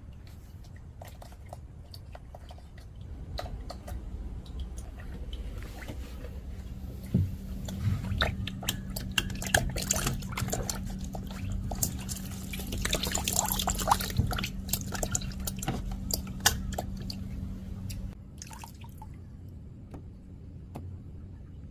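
Water dripping and splashing out of a Samsung washing machine's drain, with many small clicks and knocks, while a blockage behind a 5C drain error is cleared. The splashing is busiest in the middle. A steady low hum runs from about seven seconds in until about eighteen seconds in.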